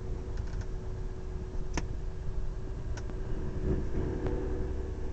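A boat's engine running steadily with a low rumble and hum, and a few sharp clicks or knocks on deck: a quick cluster near the start, then single ones about every second.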